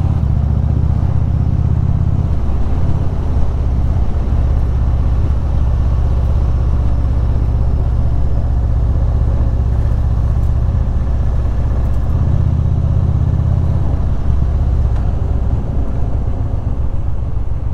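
Indian Super Chief Limited's air-cooled V-twin pulling the bike along at road speed, heard from the rider's seat with wind noise over it. The engine note rises and falls a few times as the throttle changes through the curves.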